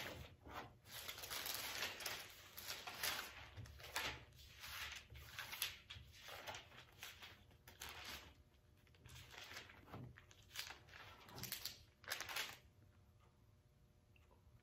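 Pages of a Bible being flipped through by hand: a string of irregular paper rustles and swishes that die away about twelve seconds in.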